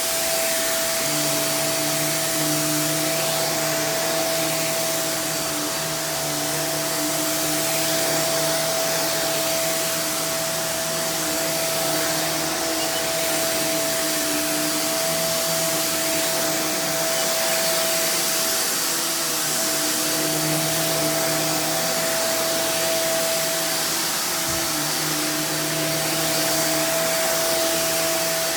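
Hoover React Professional Pet Plus UH73220 bagless upright vacuum running steadily: a constant motor whine over rushing airflow, with lower hums that come and go as it is worked.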